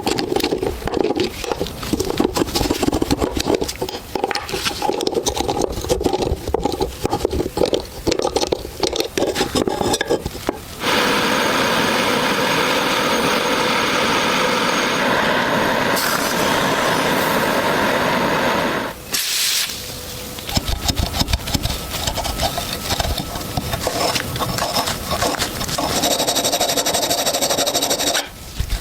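Rust-removal work on pistol parts: rough scraping and rubbing on metal, then, about eleven seconds in, a steady power-tool hiss that stops after about eight seconds, followed by more scraping and rubbing.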